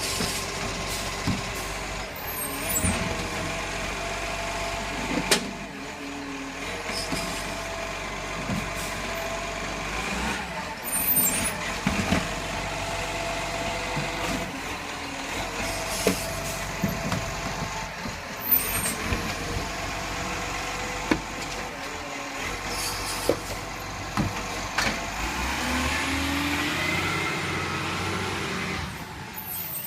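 Recycling garbage truck at work: its diesel engine runs steadily, with scattered clunks and several short air-brake hisses. Near the end the engine's pitch rises.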